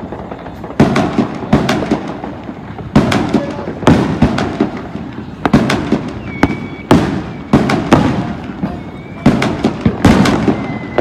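Fireworks going off around the neighbourhood: a steady run of sharp bangs, one or two a second, each followed by a short echo.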